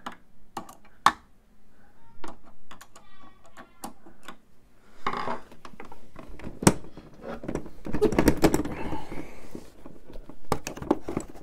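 Scattered sharp plastic clicks and snaps from a screwdriver prying a stiff part off the back of a Samsung Odyssey Neo G8 monitor's housing, with one loud snap about two-thirds of the way through. There is a brief squeak about three seconds in, and rubbing and knocking as the monitor is tilted and handled.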